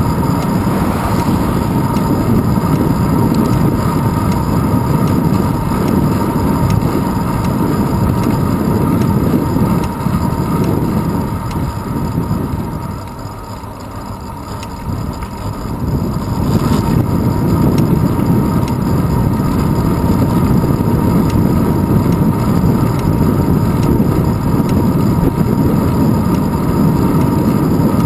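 Wind rushing over a handlebar-mounted GoPro in its housing, with road rumble from a moving bicycle: a steady, loud rumble that drops for a few seconds about halfway through.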